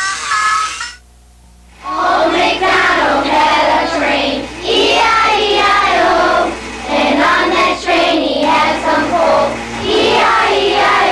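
Children singing a song in phrases with short breaks, after a brief musical passage in the first second.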